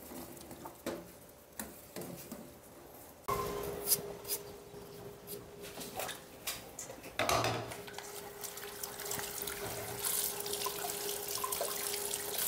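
A few light clicks, then about three seconds in a kitchen tap is turned on and water runs steadily into the sink, with a steady tone in the flow. Knocks of things being handled and rinsed under it.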